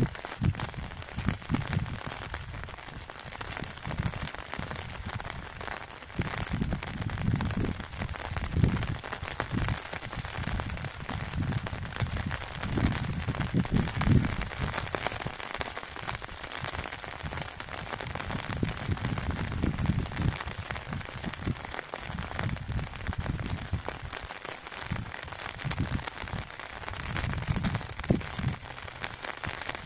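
Rain falling steadily, a constant hiss, with irregular low rumbles coming and going underneath.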